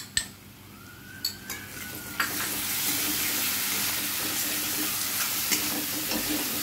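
Ground onion-ginger spice paste sizzling in hot oil with fried onions in an aluminium kadai while a spatula stirs and scrapes it around the pan. A couple of sharp spoon knocks at the start, then the sizzle turns loud about two seconds in and stays steady.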